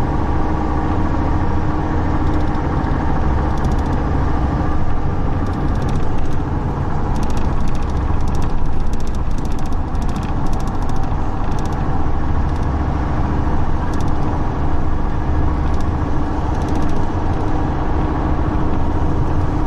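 Steady low rumble of a car driving, heard from inside the cabin, with a run of light ticks about six to ten seconds in.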